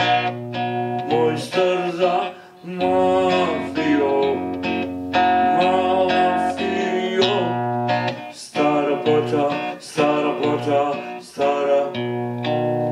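Amplified nylon-string guitar playing a waltz, with a man's wordless singing rising and falling over the chords in places.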